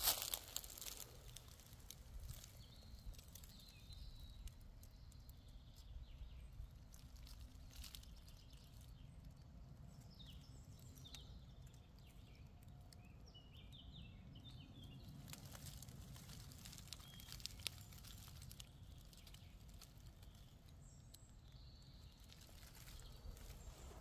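Faint forest ambience: scattered soft bird chirps over a low steady rumble, with a few small crackles from the forest floor.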